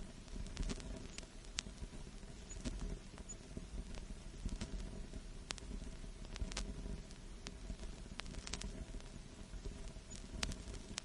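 Vinyl record surface noise: a steady low rumble and hiss with irregular sharp clicks and pops, as from a record playing with no music.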